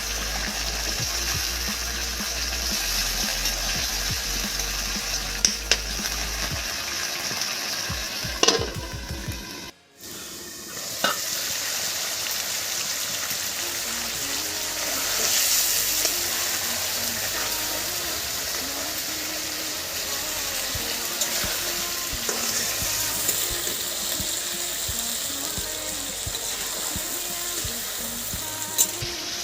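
Food sizzling and frying in a pan, a steady hiss with a few sharp clicks; it drops out briefly about ten seconds in.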